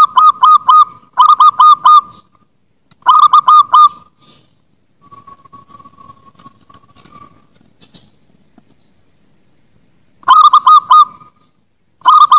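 Zebra dove (perkutut) cooing: short phrases of five or six quick, clipped notes. Three phrases come in the first four seconds, then a long lull with only a faint thin tone, then two more phrases near the end.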